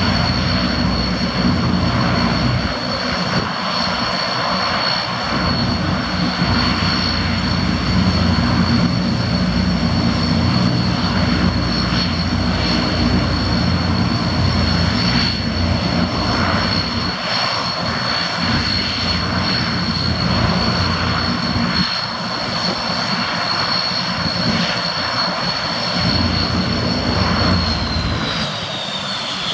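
Antonov An-12's four Ivchenko AI-20 turboprop engines running on the ground: a steady high turbine whine over the deep drone of the four-bladed propellers. Near the end the whine drops in pitch.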